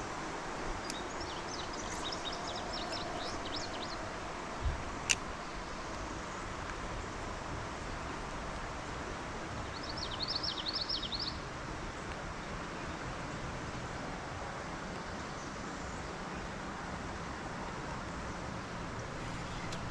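A small songbird sings two quick runs of high chirps over a steady outdoor hiss of river and air, the first about a second in and the second about ten seconds in. A single sharp knock comes near five seconds in.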